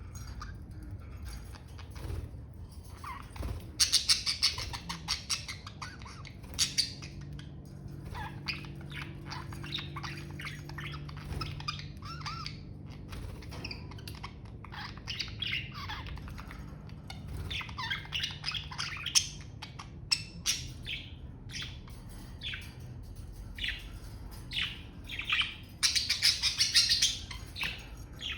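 Budgerigars chirping and warbling, a run of short chirps and chatter, with louder bursts of rapid chatter about four seconds in and again near the end.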